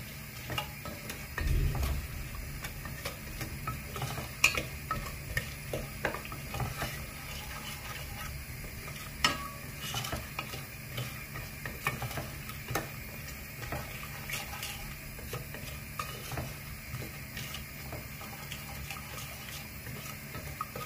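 Wooden spatula stirring soy sauce and sugar in a pot over medium heat, scraping and knocking against the pot while the sugar dissolves, over a faint sizzle from the hot sauce. The sharpest knocks come about four and nine seconds in.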